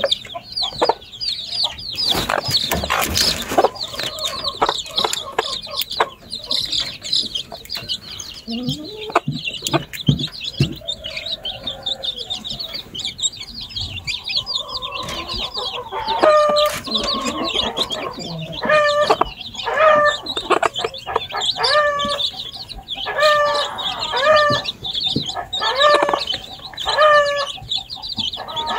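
Chicks peeping in a busy chatter of high, falling chirps. From about halfway through, a lower, louder chicken call repeats about once a second over the peeping.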